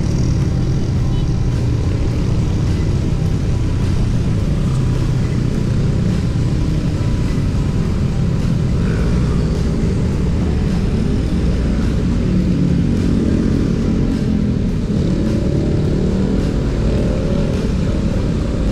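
Wind rushing over the microphone of a moving electric scooter, with road traffic and motorcycle engines around it. An engine rises in pitch over the last few seconds.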